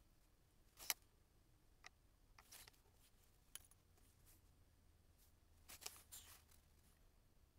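Near silence broken by a handful of faint clicks and taps as a paintbrush and a small painted board are handled on a cutting mat at a painting table. The sharpest click comes about a second in, and a short cluster follows near the end.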